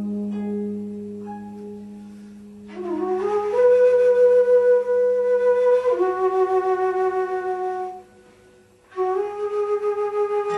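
Music: a slow melody of long held notes with vibrato, over a low drone in the first few seconds, breaking off for about a second near the end before going on.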